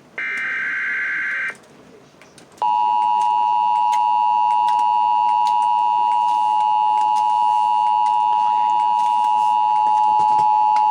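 The last burst of an Emergency Alert System SAME header, a short screech of digital data tones. About a second later comes the EAS attention signal, a loud, steady two-tone alarm held for about eight seconds, the signal that a weather alert message follows.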